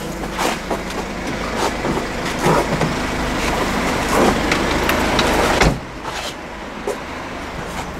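A car engine running steadily, overlaid with irregular knocks and handling noise. A heavy thump comes a little past the middle, after which the low rumble drops away and the background is quieter.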